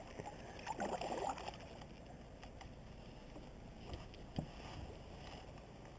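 Kayak paddle strokes through calm water, with one louder swish and splash about a second in. A couple of light knocks follow about four seconds in.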